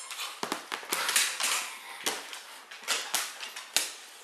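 An irregular string of sharp clicks and knocks: a Siberian husky's claws on a hardwood floor and a bottle-shaped dog toy knocking against the boards as the dog noses and grabs it.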